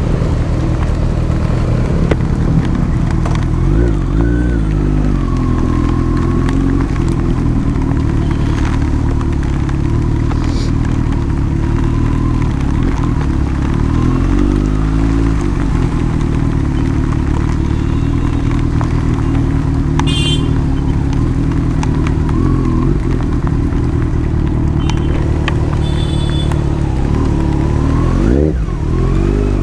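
Motorcycle engine running under way, heard through a helmet microphone, its pitch dropping and climbing again a few times as the rider changes speed. There are two short high toots in traffic, about twenty and twenty-six seconds in.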